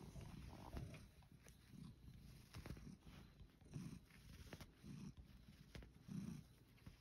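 Domestic cat purring faintly, the purr swelling about once a second with its breathing, with a few faint clicks.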